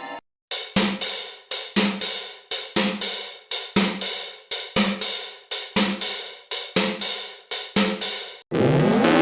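A run of sharp cymbal-like metallic crashes, about two to three a second, each dying away quickly. It is part of an electronic mock emergency-alert sound. Near the end the hits stop and a rising siren-like sweep begins.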